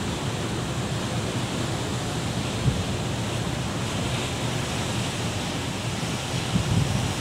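Sea surf breaking and washing over rocks as a steady rush, with wind rumbling on the microphone. A short bump sounds once about two and a half seconds in.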